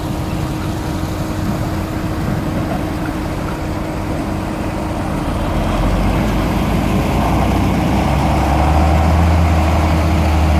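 Tractor engine running steadily with a constant hum beneath it, growing louder about six seconds in, with a deep drone building near the end.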